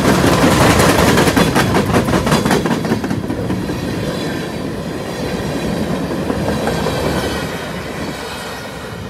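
Freight train's open-top hopper cars rolling past at speed. Their wheels click rapidly over rail joints for the first few seconds over a steady rumble, which then grows quieter as the cars move away.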